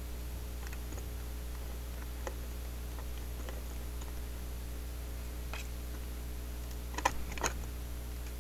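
Small metal clicks and light scrapes of steel tweezers and a screwdriver working a tiny screw into a model railcar's metal frame, with a cluster of sharper clicks about seven seconds in. A steady low electrical hum runs underneath.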